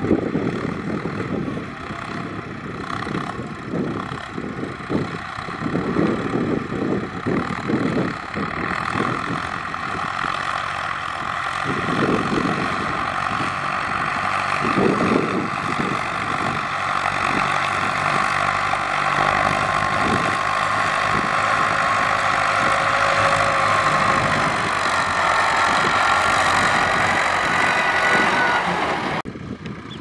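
Kubota combine harvester running: a steady engine and machinery whine with several held tones, over an uneven low rumble that is strongest in the first half. The sound drops off abruptly near the end.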